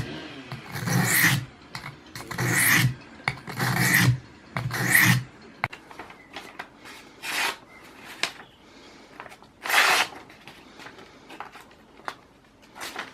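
Swiss Army knife blade being sharpened, drawn in long scraping strokes across a sharpener. Four strokes come in the first five seconds, followed by a few shorter, quieter strokes and light clicks.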